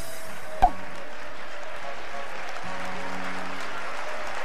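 Studio audience applauding steadily over a short music cue. There is a single sharp thump about half a second in.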